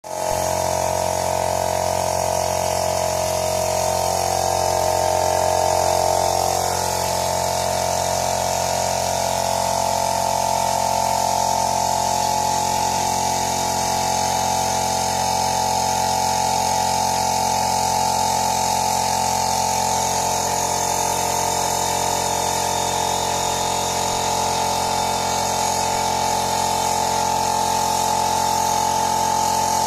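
Yamaha F1ZR's single-cylinder two-stroke engine running steadily at idle, with a brief rise in revs around four to six seconds in before it settles back.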